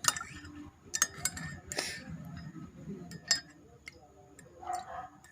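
Kitchen utensils clinking against glass and dishes: several sharp, irregular clinks, with a brief scraping rustle about two seconds in.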